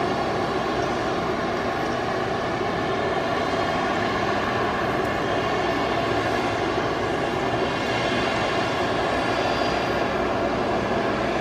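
Airbus A319 airliner's turbines running with a steady jet whine and roar while the aircraft is pushed back by a tug.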